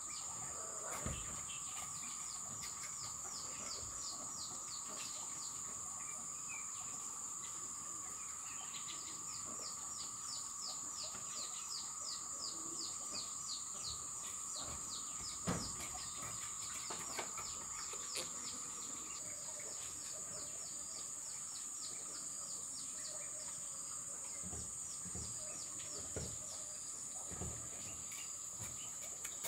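Outdoor insect and bird chorus: a steady high insect drone and a lower steady buzz, with long runs of rapid descending chirps. A few soft knocks and scrapes from a hand trowel working planter soil, the loudest about halfway through.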